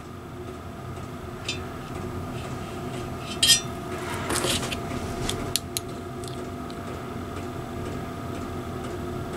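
A few light metal clinks and ticks from a telescopic bore gauge being set in a cast-iron cylinder bore and then closed in the jaws of digital calipers, the loudest clink about three and a half seconds in and a quick run of ticks a couple of seconds later, over a steady low hum.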